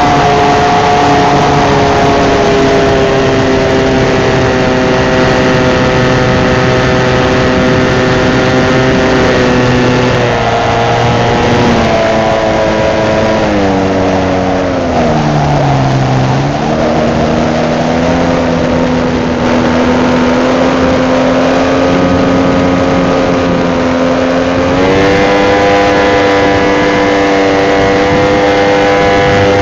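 Motor and propeller of a radio-controlled scale Cessna 182, heard close up from on board in flight, with rushing air behind it. The pitch sags slowly, falls steeply as the throttle is pulled back about halfway through, holds lower, then rises again as power comes back near the end.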